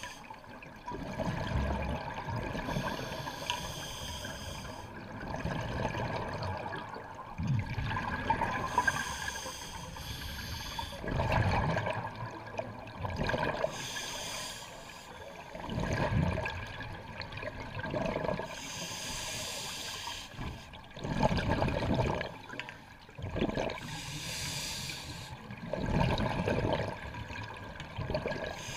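Scuba diver breathing through a regulator, heard underwater: a hiss on each inhale, then a rush of exhaled bubbles, about one breath every five seconds.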